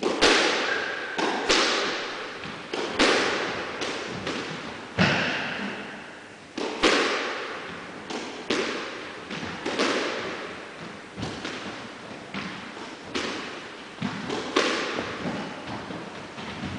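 A squash rally: the ball struck by rackets and smacking off the court walls, sharp echoing hits about every second or so, each dying away before the next.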